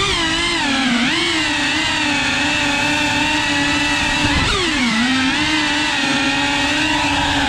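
FPV quadcopter's brushless motors and propellers whining, heard from the drone's onboard camera. The whine holds a steady pitch, dipping and climbing back twice, near the start and again about halfway through, as the throttle is eased and opened again.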